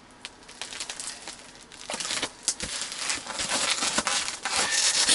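Crinkling, crackling rustle of stiff winter clothing and cot bedding as a person moves and sits down, with many small sharp clicks, getting louder in the second half.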